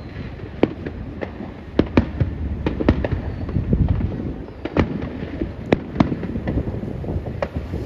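Aerial fireworks shells bursting: a dozen or so sharp bangs at uneven intervals over a continuous low rumble.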